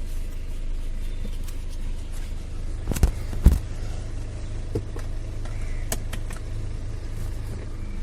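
BMW engine idling steadily, with two sharp clicks about half a second apart near the middle as the seat belt is pulled and latched into its buckle.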